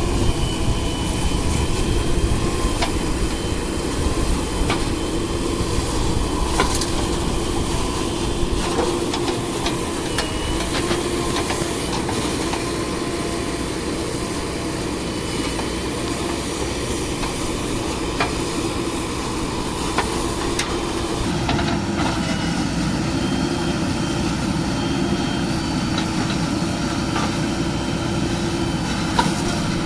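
Heavy diesel engine running steadily, with scattered short metallic knocks. The engine note changes about two-thirds of the way through.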